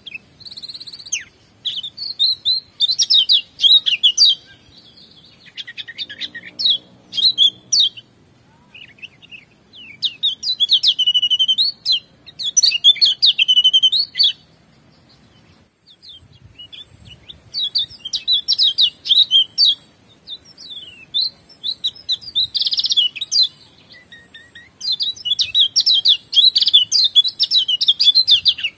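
Kecial kuning (a white-eye, sold as pleci Lombok) singing in rapid, high twittering phrases that come in bursts of one to three seconds with short pauses between. The song is varied, with fill-in phrases mixed in.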